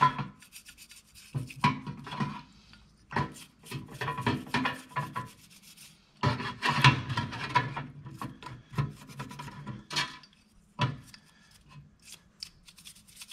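A small hand tool scraping softened tar and grime off a steel exhaust hanger part soaked in acetone solvent, in several irregular bursts of strokes with short pauses between.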